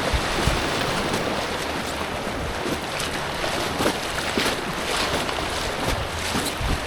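Steady rush of creek water around a small inflatable kayak, with a few short splashes scattered through.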